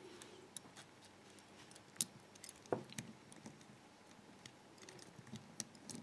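Faint, scattered small metallic clicks and ticks of the brass locking bolts and their coil spring inside a disassembled Master 175 combination padlock being handled as the spring is refitted. There are a couple of sharper clicks about two seconds in and just before three seconds.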